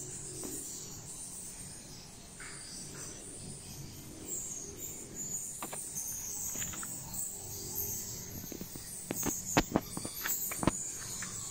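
Insects chirring steadily in the background. A quick run of sharp clicks and knocks comes about nine to eleven seconds in.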